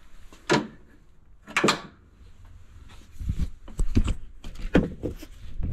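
Two sharp clicks, then a couple of seconds of knocking and low rumbling bumps as the camera is gripped and moved around the truck cab.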